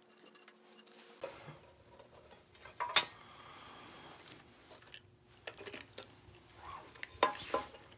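Scattered clicks and light clinks of hands and tools working on an RC excavator as it is opened up. The sharpest click comes about three seconds in, and a few more follow near the end.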